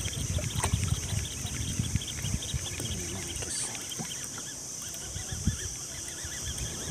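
Wind buffeting the microphone in uneven low gusts, with a cloth sleeve rubbing against it.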